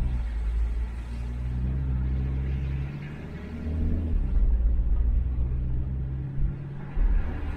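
A van's engine running with a low rumble, its pitch rising briefly about four seconds in.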